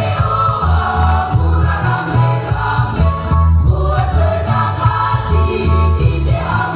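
School choir singing in parts over a heavy bass accompaniment with rhythmic percussion.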